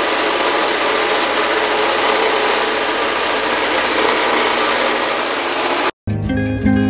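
Square-pad orbital floor sander running steadily as it sands poplar floorboards. About six seconds in it cuts off abruptly and guitar music begins.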